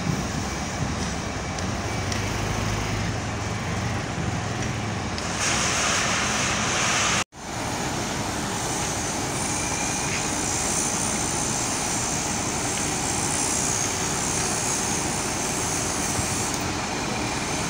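Steady rumble of diesel engines from concrete mixer trucks and other heavy vehicles, with no distinct events. A louder hiss rises about five seconds in, and the sound cuts out for an instant at a break about seven seconds in, then the steady engine noise resumes.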